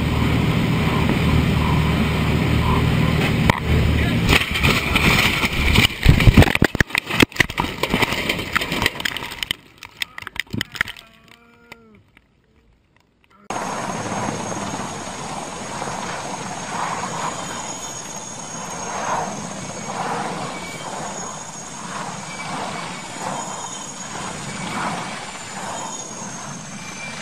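A light propeller plane's engine running, heard from inside the cockpit, then a string of loud, jolting impacts from about four to nine seconds in as the plane comes down. After a few seconds of near silence, a helicopter's steady high turbine whine and rotor noise begin.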